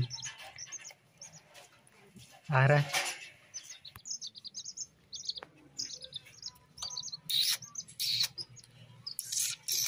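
Chicks peeping: short high cheeps repeated again and again. A brief human voice comes in about two and a half seconds in, and a few sharp knocks come near the end.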